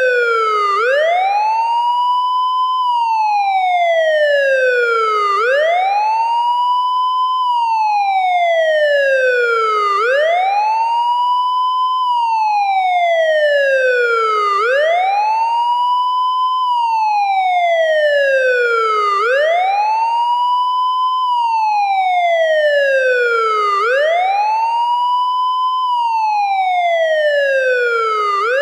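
Police siren wailing: its pitch climbs quickly, holds briefly at the top, then falls more slowly, the rise-and-fall repeating about every four and a half seconds, six times over.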